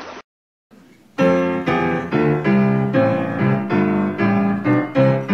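Solo piano playing a bouncy introduction, a steady run of chords about two a second, starting about a second in after a moment of silence.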